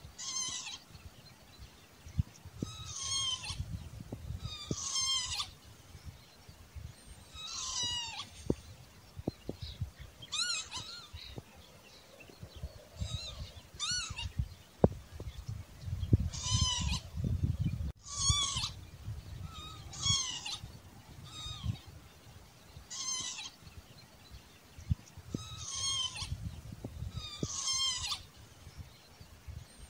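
Northern lapwing calling over and over, about a dozen short wheezy 'pee-wit' calls spaced two to three seconds apart, each a quick slurred glide. A low rumble with scattered faint clicks runs underneath.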